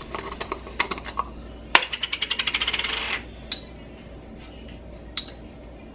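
A glass jar of chicken bouillon powder is opened and a metal spoon goes into it, making light clicks and clinks. About two seconds in comes a sharp click, then a quick rattling scrape of the spoon against the jar for about a second, then a few more clinks.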